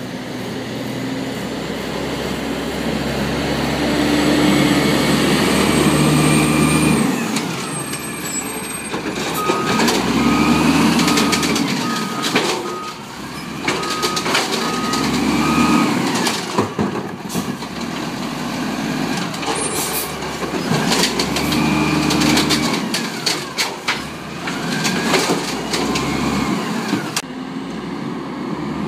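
Automated side-loader garbage truck at work: its diesel engine revs up and falls back again and again as the hydraulic arm lifts and dumps carts, with knocks and clanks from the arm and carts. A run of beeps sounds midway.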